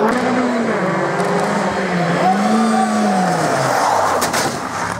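Rally car engine revving hard, its pitch rising and falling with gear changes and throttle, as the car comes up at speed and passes close by about four seconds in.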